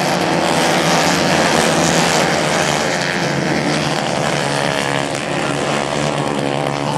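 Several racing kart engines running at high revs as the karts race past, a loud, continuous engine drone whose pitch rises and falls.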